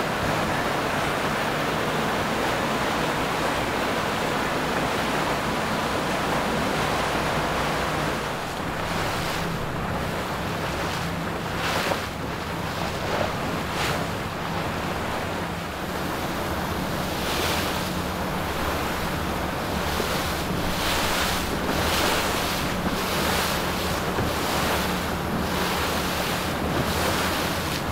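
Wind buffeting the microphone over rushing water and waves, with the low steady hum of boat engines underneath.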